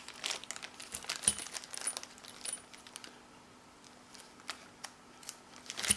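Handling noise from unpacking padlocks: wrapping rustles and small metal clicks and taps. These are dense in the first couple of seconds, sparse after, with a sharper click at the end.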